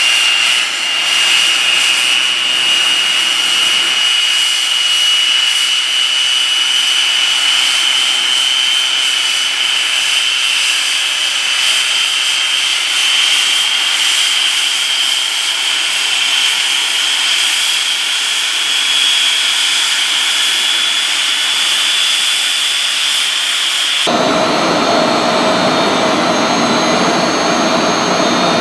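Orenda OTF-3 industrial gas turbine running, a loud steady high compressor whine over a rushing hiss, its pitch creeping slowly upward. About 24 seconds in the sound changes abruptly to a deeper rumble with a lower steady tone, heard from the control room behind glass.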